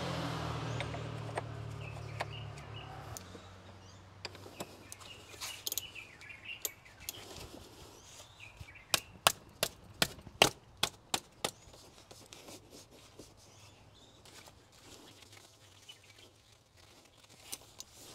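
Ratchet wrench with a 36 mm socket loosening the oil filter cap of a BMW S65 V8: a run of about nine sharp ratchet clicks, roughly four a second, about halfway through, with lighter scattered clicks before it. A low steady hum fades out in the first three seconds.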